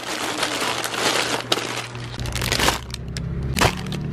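Plastic grocery packaging crinkling and rustling as packs are handled and shifted in a cardboard box, with a low steady hum coming in about halfway through.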